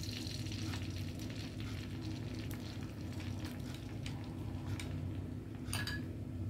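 Beaten egg mixture sizzling and crackling as it is poured into a hot square frying pan on a portable gas stove, the hiss strongest at first as the egg hits the pan. A steady low hum runs underneath, and a single sharp clink comes near the end.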